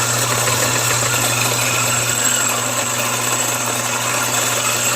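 Fellow Ode Gen 2 electric flat-burr coffee grinder running steadily, its motor humming under the grinding noise of coffee beans being slowly fed through the burrs.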